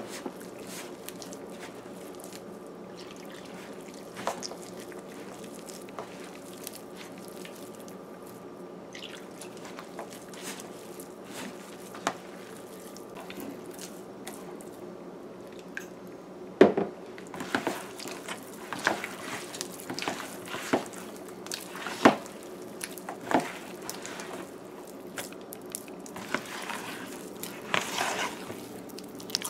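A hand squelching and slapping through a wet flour-and-split-pea batter in a plastic bowl, the squishes sparse at first and coming thick and irregular in the second half, over a steady background hum.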